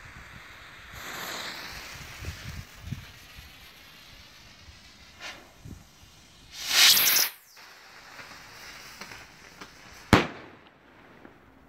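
Small consumer firework rocket launching with a loud rushing whoosh about seven seconds in, then a single sharp bang as it bursts a few seconds later.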